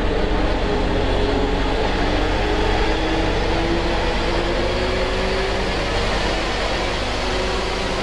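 A steady low drone with a dense hiss over it.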